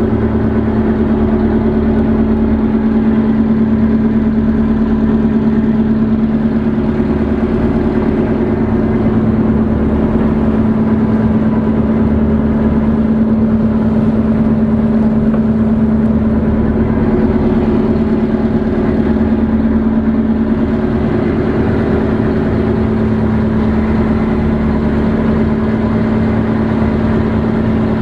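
Fishing boat's engine running steadily under way, a constant hum with water and wind noise from the moving hull.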